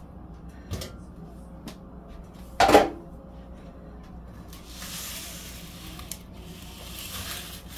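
Kitchen handling sounds: a few small clicks, one loud short clunk a little under three seconds in, then two stretches of soft, hissing rustle.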